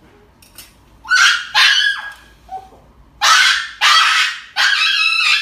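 Small dog yelping in distress, about five loud high-pitched cries in quick succession starting about a second in, while held for an injection.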